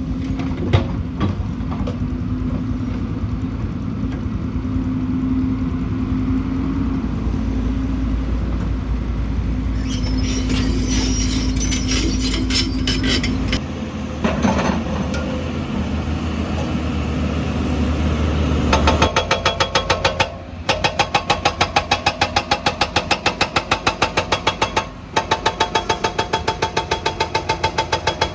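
Excavator engine running steadily, with scattered clicks and knocks partway through. About two-thirds of the way in, the sound switches abruptly to fast, regular hammering, several blows a second.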